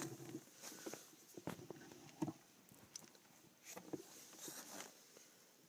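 Faint, scattered light taps and clicks of small parts being handled while a thin wire is soldered onto a connector prong.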